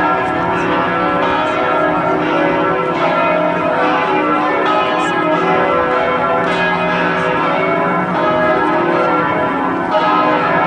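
Church bells of Notre-Dame Basilica ringing together in a loud, continuous peal: many overlapping, sustained tones, with fresh strikes coming in at irregular intervals.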